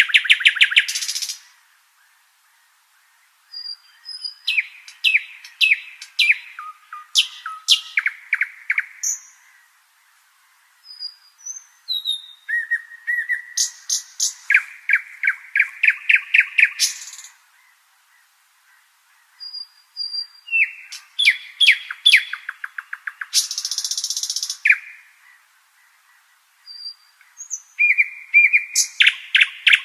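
Nightingale singing: about five song phrases separated by short pauses, each made of rapid runs of repeated notes, trills and short whistles.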